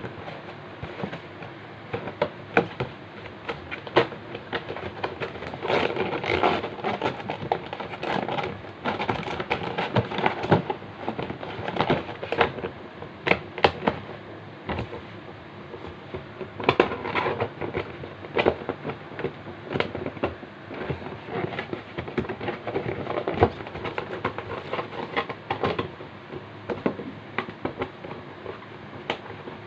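Clear plastic packaging crinkling and rustling as it is handled and unfolded, with many irregular sharp crackles that come thicker in two stretches.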